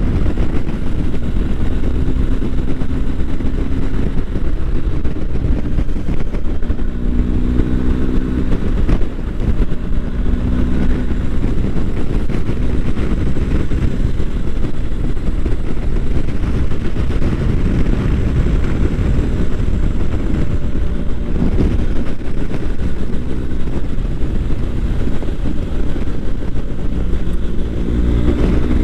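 BMW GS boxer-twin motorcycle engine under way, over a steady low rush of wind and road noise. The engine note rises in pitch as the bike accelerates: about seven seconds in, again around ten seconds, and near the end.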